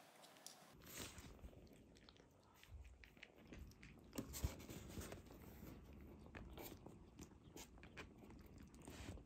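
A kitten eating from an aluminium foil tray: faint, irregular chewing and clicking.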